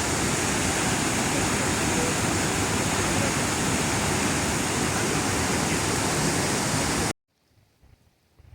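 Loud, steady rush of a waterfall that cuts off abruptly about seven seconds in, leaving near silence.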